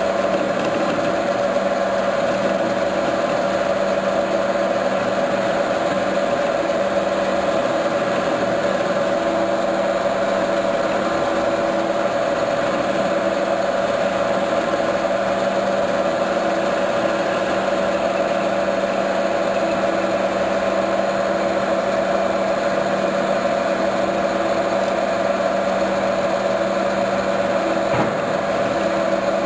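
Metal lathe running steadily, a steady hum with a higher whine from the machine, while a grooving tool cuts the thread relief groove into the turning workpiece.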